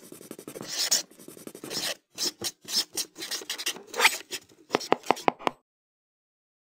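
Pen nib scratching across paper in quick, uneven strokes, like handwriting, ending in a run of about five sharp ticks near the end before it stops.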